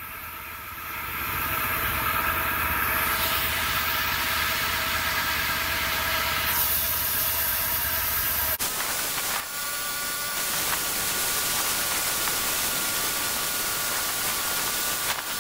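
Homemade band sawmill running, its gasoline engine driving the blade under load as it cuts lengthwise through a 22-inch frozen hardwood log. The engine and blade noise is steady, with an abrupt shift in the sound about two thirds of the way in.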